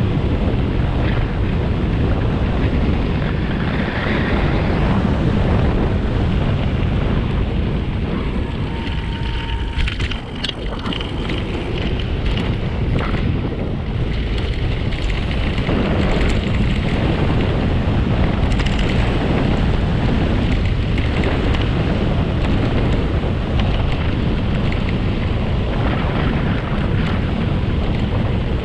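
Wind buffeting a moving camera's microphone with a steady low rumble of tyres on the road, and a few knocks about ten to thirteen seconds in.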